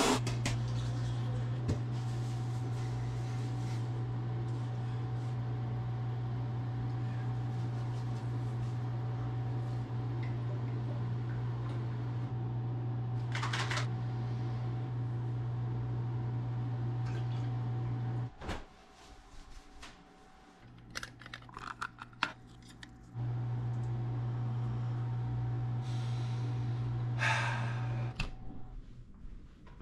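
A steady low electric hum that cuts off about 18 seconds in and starts again about five seconds later, with a few light clicks and knocks over it.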